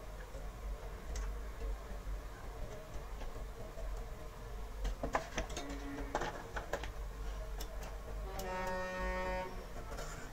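Small sharp clicks of dry popcorn kernels and hands on a computer's open case, over a low steady hum. Near the end a steady pitched tone sounds for about a second.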